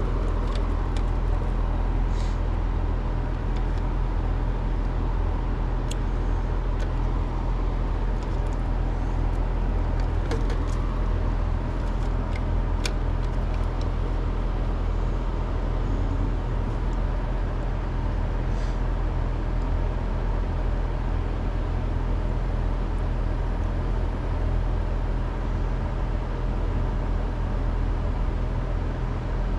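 Trane outdoor air-conditioning unit running with a steady, unchanging low hum, with a few light clicks scattered through it.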